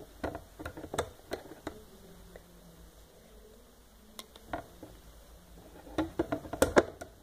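Light clicks and taps of hands handling rubber bands on a clear plastic Rainbow Loom while a purple band is stretched over its pegs. The taps come in a cluster at the start and another about six seconds in, with a quieter stretch between.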